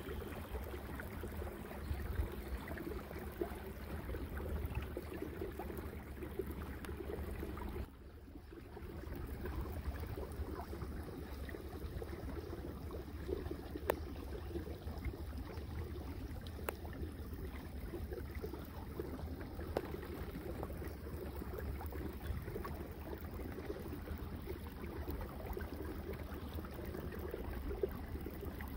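The kayak's small motor running steadily, a low hum with water washing along the hull. It drops out for a moment about eight seconds in.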